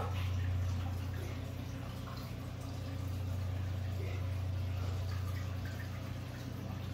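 Aquarium filter running: a steady low hum with faint trickling and dripping water.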